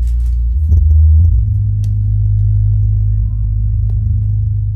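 Jamo 8-inch active subwoofer playing loud, deep bass. It runs on a replacement DIY amplifier module and low-pass filter. The low note is held steady and steps up in pitch about a second in.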